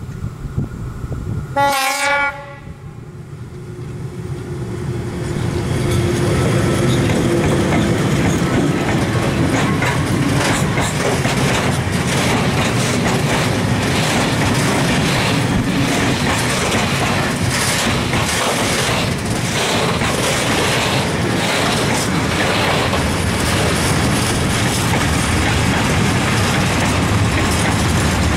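ČD class 182 electric locomotive gives one short horn blast about two seconds in, then passes hauling a mixed freight train. From about six seconds the tank and container wagons roll by close at speed, a loud steady rumble with the clickety-clack of wheels over rail joints.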